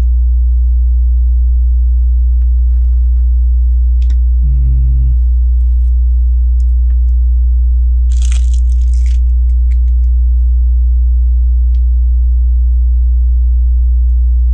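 A loud, steady electrical hum with its overtones runs throughout, with faint clicks of Lego bricks being handled. About two-thirds of the way through there is a brief rustle, like a plastic parts bag.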